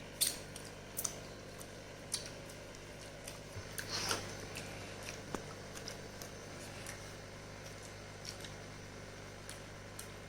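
Faint eating sounds of a person chewing: scattered short mouth clicks and lip smacks, with a slightly longer wet smack about four seconds in, over a steady low hum.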